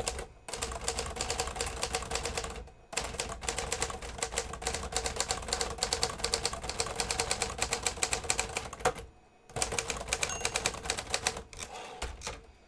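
1965 Hermes 3000 manual portable typewriter being typed on at speed: a rapid, continuous clatter of keystrokes and typebars striking. The clatter breaks off briefly twice, about three seconds in and about nine seconds in.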